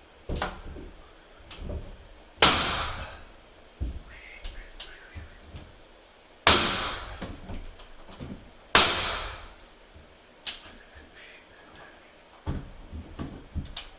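Hammer driving nails: three hard blows a few seconds apart, each ringing briefly, with lighter taps and knocks in between.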